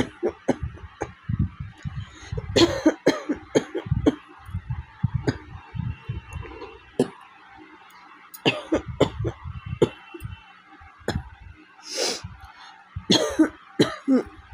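A woman coughing again and again in short fits, with some throat clearing between them. She has a cold with a hoarse, sore throat.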